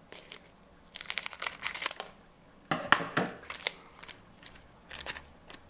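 Foil booster-pack wrapper crinkling and tearing as it is opened by hand, in several short bursts, the loudest about three seconds in.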